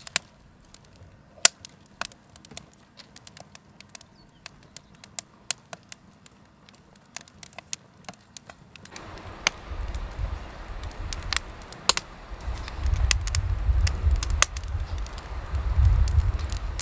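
Campfire of wet firewood crackling in a steel fire ring, with sharp, irregular pops. About nine seconds in, a low rumble joins the crackling.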